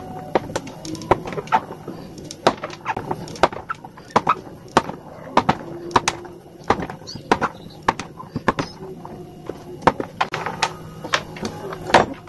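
A kitchen knife chopping a hard hot-melt glue stick into small pieces on a tabletop: an irregular run of sharp clicks and knocks, several a second, as the blade snaps through the stick and strikes the table.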